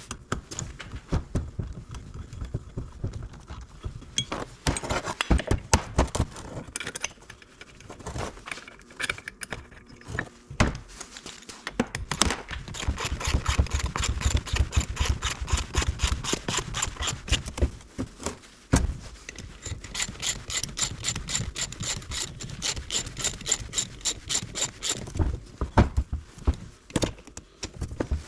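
Hand tools at work on bolts in a car's engine bay. A socket ratchet clicks in fast, even runs of about nine clicks a second, with scattered clinks and knocks of metal between the runs.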